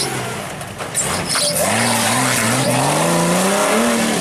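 Off-road vehicle engine revving, its pitch rising and falling in repeated throttle blips from about a second and a half in, over a steady background of noise.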